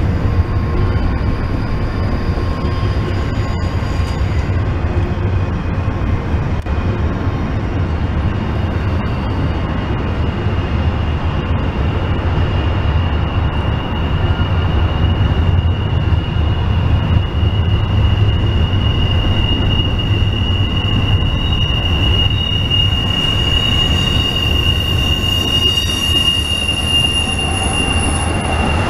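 Double-stack intermodal container train rolling past: a steady rumble of wheels on the rails, with a high, steady-pitched wheel squeal that grows louder through the second half.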